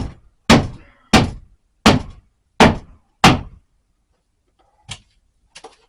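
Hammer blows forcing a piece of the wall into place: six hard strikes at a steady pace of about one every two-thirds of a second, then two lighter knocks near the end.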